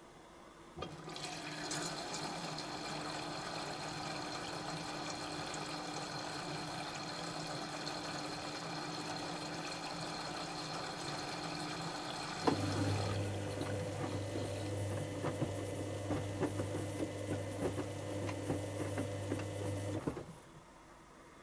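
Dyson Contrarotator CR01 washing machine taking in water: a steady rush of water for about eleven seconds, then a low hum with irregular splashing for about seven more. Both stop suddenly about 20 seconds in.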